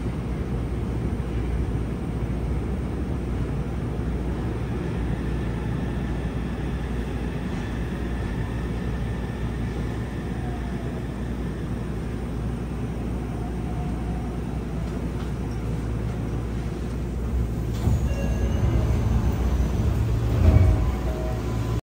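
Cabin running noise of a Yokohama Municipal Subway 3000S train: a steady rumble of wheels on rail, with faint whining tones from its Mitsubishi IGBT-VVVF traction drive, as it runs into its terminus. Near the end the sound changes, with brief tones and a sharp knock.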